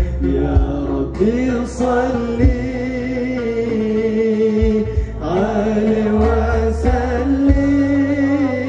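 A male voice sings a devotional Arabic qasidah with long, bending held notes over a live gambus ensemble. The band carries a steady bass line and a few sharp percussion strikes.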